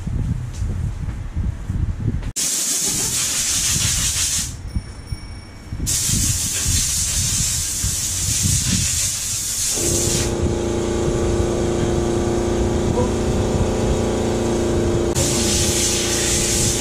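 Air hissing hard as dust is blown out of a desktop computer case, in spells with a short break about five seconds in. From about ten seconds a steady motor hum runs underneath. Low wind rumble on the action camera's microphone sits under it all.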